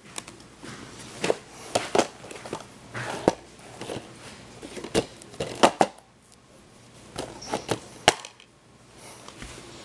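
Plastic DVD case being handled and turned over in the hands: a series of sharp clicks and knocks with rubbing and rustling between them.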